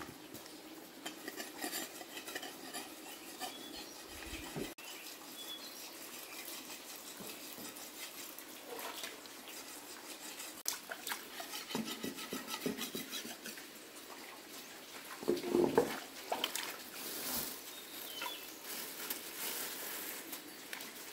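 Washing up in a shallow stream: water splashing and sloshing around hands, a metal pan and a knife, with many small clinks and scrapes of metal on stone. One louder noise comes about 15 seconds in.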